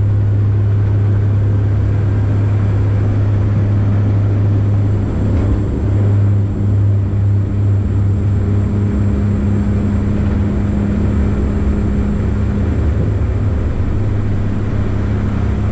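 Dash 8 Q400's Pratt & Whitney Canada PW150A turboprops and six-blade propellers at takeoff power, heard from inside the cabin beside the propeller during the takeoff run and liftoff. It is a loud, steady, low propeller drone that begins to waver about five seconds in.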